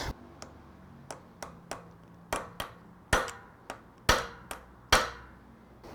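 About a dozen sharp knocks and taps, irregularly spaced, the loudest about three, four and five seconds in.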